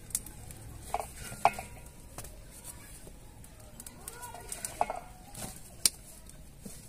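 Chickens clucking a few short times, with several sharp clicks between the calls; the loudest clicks come about a second and a half and just under six seconds in.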